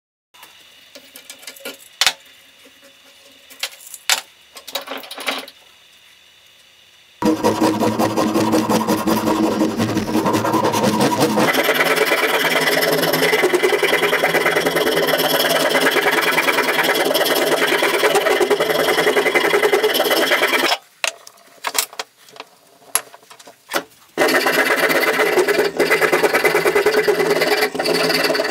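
A hand file rasping back and forth across wooden handle scales clamped in a bench vise, in quick steady strokes. The first few seconds hold only light handling clicks. Filing then runs for about thirteen seconds, breaks off for a few seconds of clicks and handling, and starts again.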